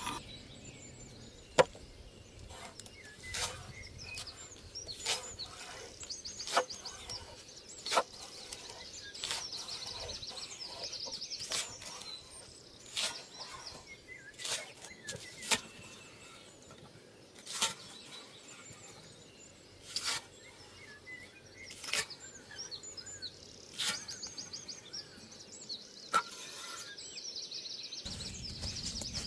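Forest birds singing in repeated high trills, with sharp clicks and knocks every second or two, the loudest about one and a half seconds in and around eight seconds in.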